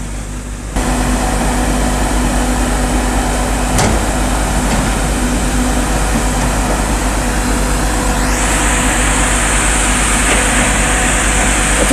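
Fenghua DS-60 fog cannon running: the steady rush of its fan and water mist over a machinery hum. About eight seconds in a whine rises and settles into a steady high hiss.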